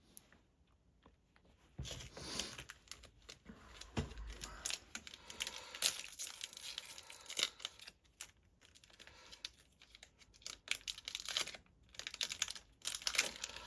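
Crinkling and tearing of a foil trading-card pack wrapper, with the cards rustling and clicking as they are handled, in irregular scratchy bursts.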